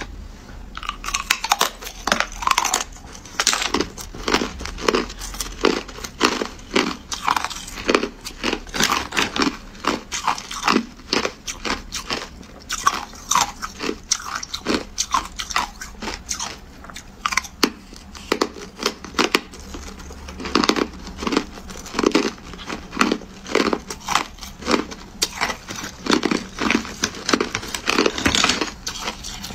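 Hard clear ice being bitten and chewed: a dense run of sharp cracks and crunches, several a second, starting about a second in.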